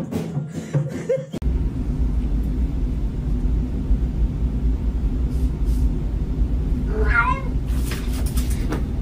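A cat gives one short, wavering meow about seven seconds in, over a steady low rumble. A quick clatter of clicks follows as it pounces at the door on the tiled floor. The first second or so holds music.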